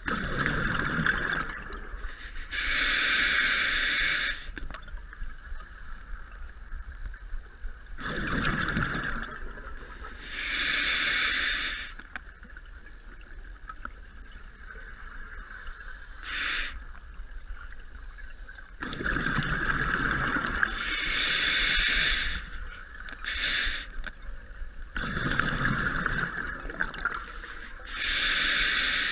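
A scuba diver's breathing through an open-circuit regulator, heard underwater: a hiss on each inhale and a bubbling rumble on each exhale, about four breaths, each a few seconds apart.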